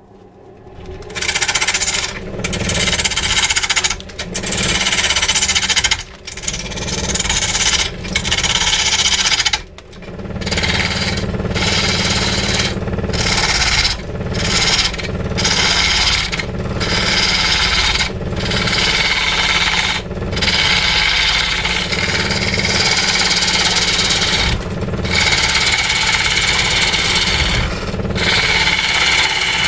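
A power tool working wood, running loud with short breaks every couple of seconds as it is eased off and put back into the cut.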